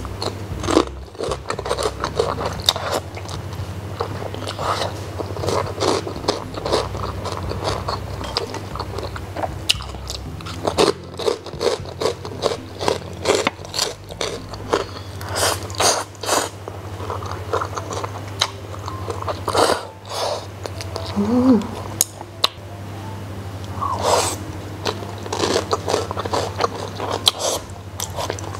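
Close-miked eating: instant noodles slurped in, then chewed with a crisp crunching of fried pork-skin cracklings, in many short crackly bites. A low steady hum runs underneath.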